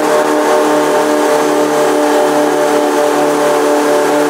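Twin stern-drive engines of a 1997 Sea Ray 280 bow rider running steadily at high speed, near full throttle, with a rush of wind and water underneath.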